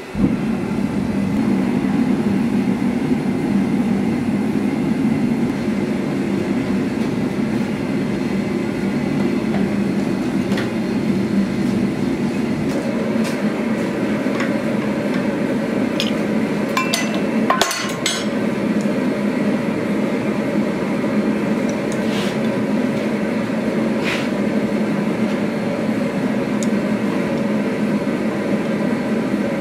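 Forge burner running with a steady, loud rushing noise, with a few sharp metallic clinks of tongs and pliers against the steel jig and vise around the middle.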